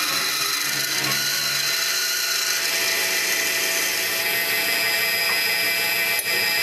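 Manual turret lathe cutting brass stock: a steady high cutting noise over the machine's running hum, easing about four seconds in.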